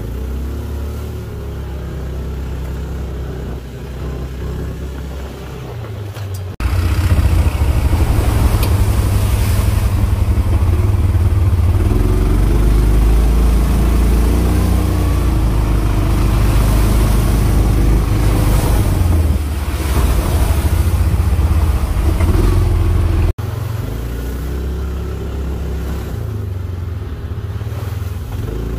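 Off-road vehicle engine running and revving while being ridden, with a heavy low rumble. It jumps abruptly louder about seven seconds in and drops back just as abruptly about five seconds before the end.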